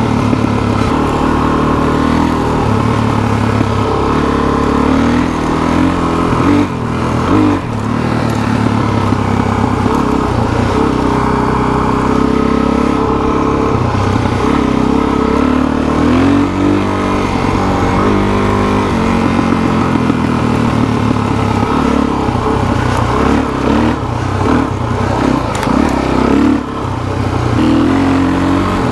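Suzuki DR-Z400SM's single-cylinder four-stroke engine heard from on board while riding a dirt trail, revs rising and falling with the throttle throughout.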